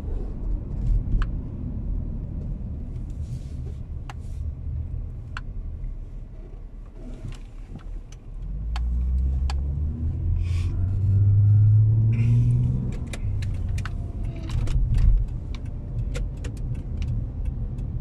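Car engine and road noise heard from inside the cabin. About halfway through, the engine note rises and gets louder as the car accelerates, then settles back. Scattered light clicks and rattles come through throughout.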